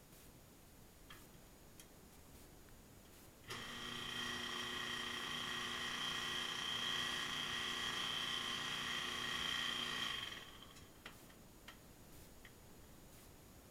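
Washing machine making a steady whine with several fixed pitches for about seven seconds, starting suddenly a few seconds in and fading out, with a few faint clicks before and after. This is the noise of a faulty washer that agitates slowly and won't spin.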